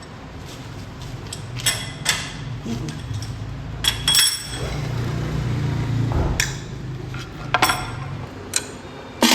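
A series of sharp metallic clinks and knocks, about one a second, some with a brief ringing tone, as steel tools and parts are handled and struck in a machine workshop. A low hum runs underneath and swells around the middle.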